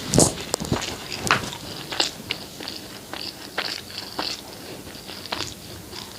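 Close-miked chewing and biting of food: irregular wet mouth clicks and smacks, several a second, loudest just after the start.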